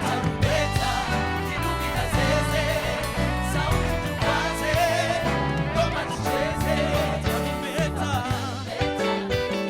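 Gospel worship music: voices singing over a band with a steady bass line and drums.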